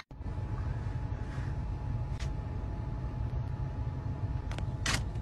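A car running, heard from inside its cabin: a steady low rumble with a faint steady tone above it. A few faint clicks come about two seconds in and again near the end.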